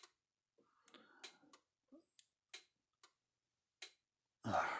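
Stafix X18i electric fence energizer clicking with each output pulse, a sharp tick about every 1.3 seconds, with a few fainter clicks and rustles in between.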